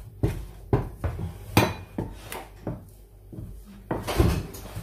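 Kitchen clatter: separate knocks and clinks of dishes and utensils being handled, growing into a busier clatter about four seconds in.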